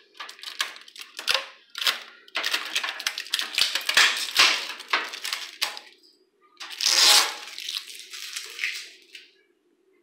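Handling noise at the back of a microwave: quick clicks, rattles and plastic crinkling as its power cord is unwound and freed from a plastic tie, with a louder rustling burst about seven seconds in.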